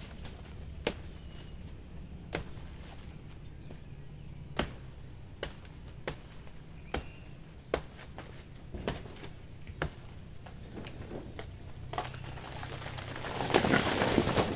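Sharp, short snaps or knocks about ten times at uneven intervals, from work by hand at a banana plant. Near the end, a loud rustle of banana leaves brushing close against the microphone.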